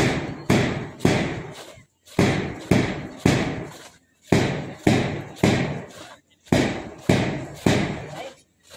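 A drum beaten in a steady marching rhythm: groups of four strokes, the last two close together, each group followed by a short pause, repeating about every two seconds.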